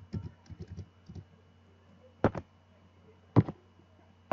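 Computer keyboard keys clicking: a quick run of light keystrokes in the first second, then two louder single key presses about a second apart.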